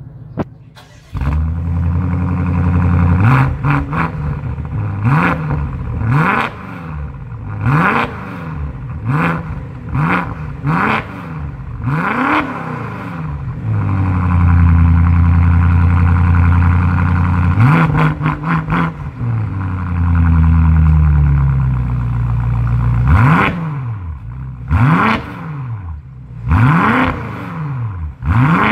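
BMW F85 X5 M's twin-turbo V8 through a Fi valvetronic cat-back exhaust with catless downpipes, revved while parked: deep and very loud. It idles briefly and gets louder about a second in. Then come quick throttle blips about once a second, two longer held revs in the middle, and more blips near the end.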